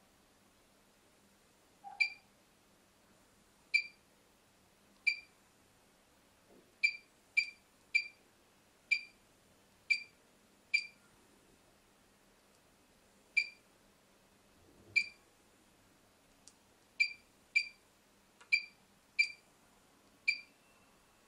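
Touchscreen control panel of a BGA rework station beeping once per key press as a profile name is typed on its on-screen keyboard: about sixteen short, high-pitched beeps at uneven intervals.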